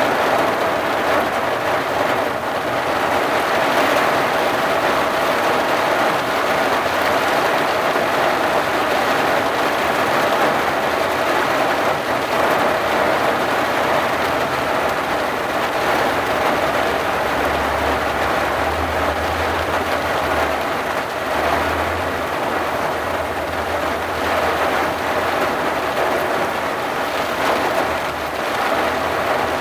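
Steady rain falling on a vehicle's windshield and roof, heard from inside as an even, unbroken hiss. A low hum comes and goes through the second half.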